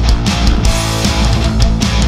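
Hardcore punk recording played at full tilt: distorted electric guitars and bass over drums, with sharp, evenly spaced drum and cymbal hits.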